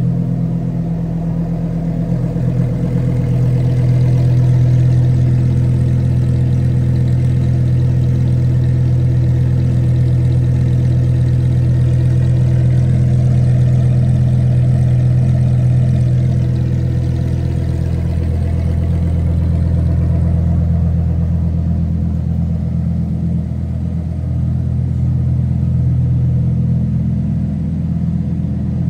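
Lamborghini Huracan Tecnica's naturally aspirated 5.2-litre V10 idling steadily through its exhaust.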